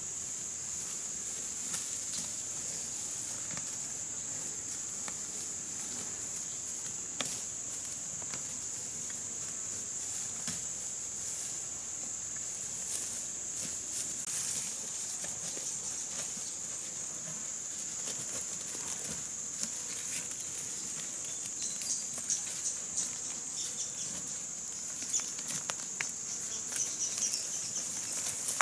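A steady, high-pitched drone of insects. Scattered light clicks and taps sound throughout and come thicker in the last few seconds.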